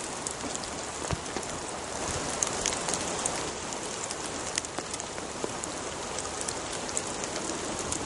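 Steady rain falling: an even hiss with many sharp drop hits ticking at irregular moments throughout.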